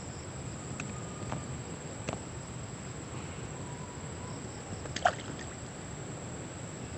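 Steady outdoor background of a high insect drone, likely crickets, over a low rumble, broken by a few faint clicks and one sharper knock about five seconds in.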